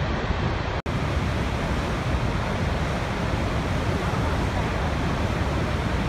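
Steady rushing of water over Niagara's Horseshoe Falls and the churning river at its brink. The sound cuts out for an instant just under a second in.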